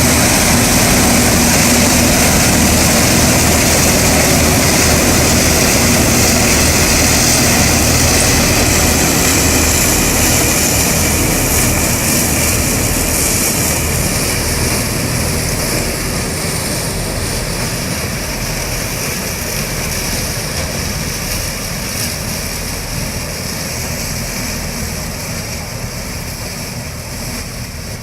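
4YZ self-propelled corn harvester's engine and machinery running steadily at high throttle, a loud, dense drone that gets gradually quieter over the second half.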